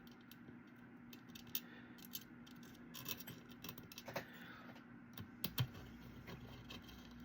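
Faint, scattered light clicks and ticks of small screws, a screwdriver and plastic case parts being handled and driven during assembly, a few sharper clicks about three seconds in and again near four to five and a half seconds.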